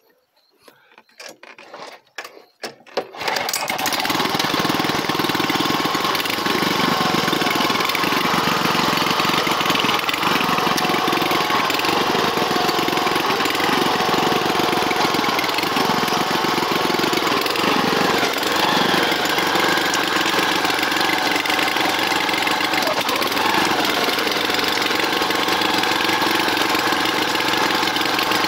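A walk-behind garden cultivator (rotary tiller): a few clicks and knocks, then its small engine starts about three seconds in. It then runs steadily while the tines churn through the soil, mixing compost and liquid fertiliser into the bed.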